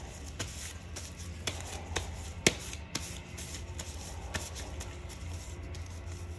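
Scattered sharp clicks and taps, the loudest about two and a half seconds in, over a steady low hum.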